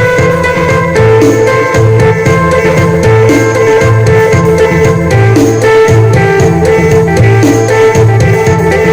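Isan phin lute music in the upbeat phin sing style, with a steady drone under the plucked melody, over a drum-kit beat and a bass line that repeats about once a second.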